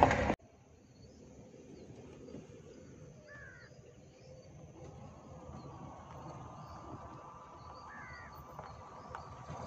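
A loud vehicle sound cuts off abruptly just after the start, leaving quiet open-air ambience. A bird calls twice, and faint insects buzz. From about halfway, the Renault Triber's small three-cylinder petrol engine is faintly heard creeping closer at low speed, slowly growing louder.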